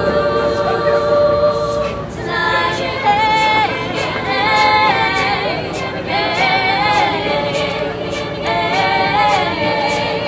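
Mixed a cappella group of young men's and women's voices singing in close harmony, with no instruments. A held chord gives way about two seconds in to a moving, wavering melody line over the harmony, with a crisp beat ticking through it.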